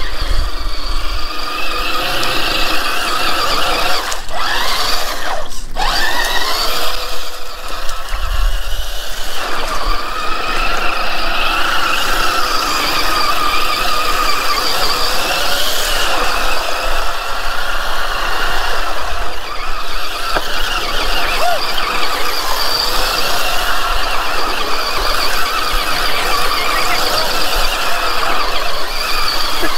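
High-pitched whine of a 1/10-scale SCX10-clone RC crawler's electric motor and geared drivetrain under throttle, wavering up and down in pitch as the truck churns through muddy water, over the hiss of water sprayed by its tyres. The whine cuts out briefly twice about four and five and a half seconds in.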